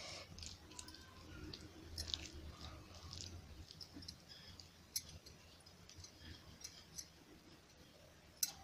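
Hands squeezing and mixing a soft mashed potato, pea and paneer filling in a glass bowl: faint squishing with scattered small clicks.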